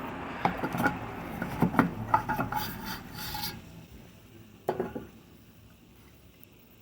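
Handling noise: a hard object rubbed and shifted about, scraping with small clicks for a few seconds, then one knock before it goes quiet.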